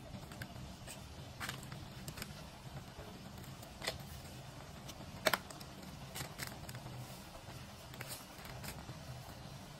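Light clicks and ticks of seasoning and sugar being spooned into a wok of stir-fried cucumber and egg, the sharpest about five seconds in, over a low steady hum and faint hiss.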